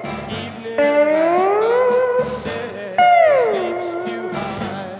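Electric slide guitar playing long sustained notes that glide smoothly in pitch, one slowly rising and one sliding down about an octave, with a new phrase struck about every two seconds. Faint backing instruments sit underneath.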